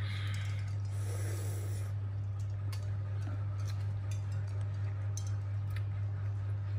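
A steady low hum, with a soft breathy puff of air about a second in and scattered faint small clicks.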